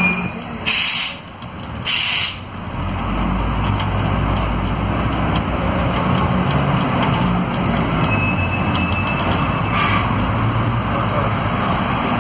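Two short hisses of compressed air, then the Scania DC09 five-cylinder diesel of a Scania K280UB city bus running with a steady low rumble, heard from inside the passenger cabin. Another brief air hiss comes near the end.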